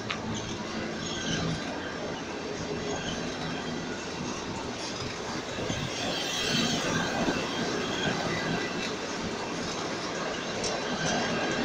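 Passenger coaches rolling past close by: a steady rush of steel wheels on the rails with a few sharp clacks, growing louder and higher-pitched for a moment about six seconds in.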